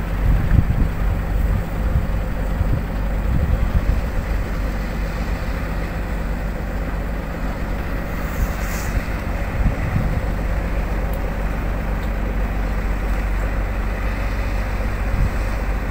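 Small fishing trawler's engine running steadily as it cruises through the harbour, a low even rumble, with wind buffeting the microphone now and then.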